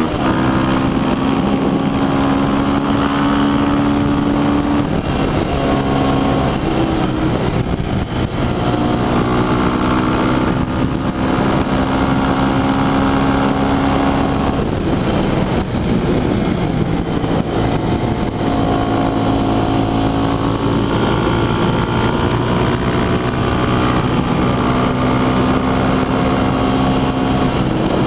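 KTM dirt bike's engine running hard at high revs on the road, its pitch held steady for stretches, dipping and climbing again a few times as the throttle eases and reopens, with wind rush over it.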